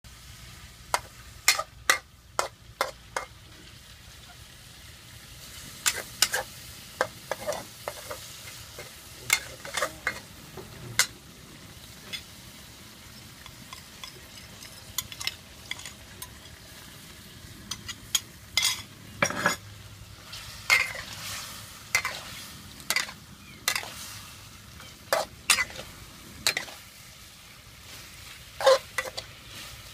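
Stir-frying in a steel wok: a spatula scrapes and knocks against the wok in irregular clusters of sharp clacks over a steady sizzle of food frying.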